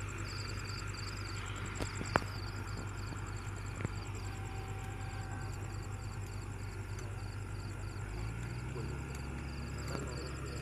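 A heavy machinery engine running steadily, its note stepping up about eight seconds in. Insects chirp in a fast even rhythm over it, and a sharp knock comes about two seconds in.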